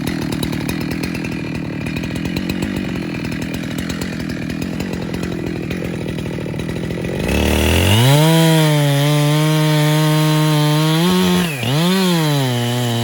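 Jonsered two-stroke chainsaw running at low revs, then revving up to full throttle about seven seconds in and holding high revs, with one brief dip in pitch that recovers near the end.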